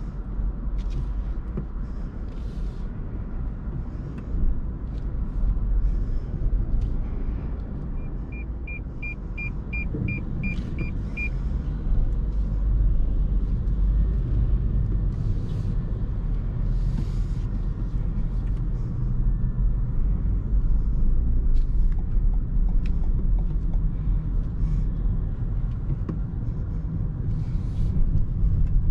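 A Toyota Corolla 1.8 Hybrid driving, with a steady low road and tyre rumble and occasional light clicks. About a third of the way in comes a quick run of about eight short, high beeps.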